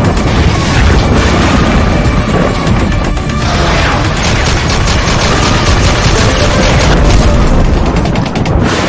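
Loud intro soundtrack: music mixed with booming hits and rapid gunfire sound effects, the gunfire thickest in the second half.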